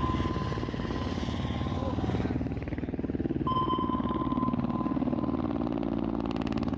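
A steady mechanical drone of fast, even pulses, like rotor and engine noise, with a continuous high-pitched beep tone over it that breaks off for a moment partway through.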